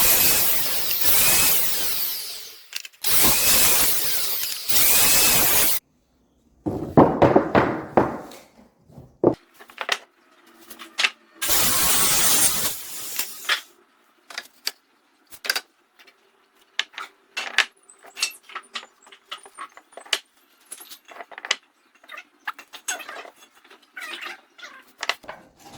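A power tool running in several bursts of a few seconds each, starting and stopping sharply, followed by a long series of light clicks and knocks from wood and tools being handled.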